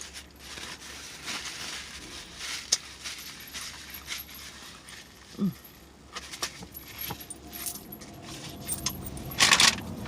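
Rustling with light clinks and clicks from handling things at the table, a brief low vocal sound about halfway through, and a louder rustle near the end.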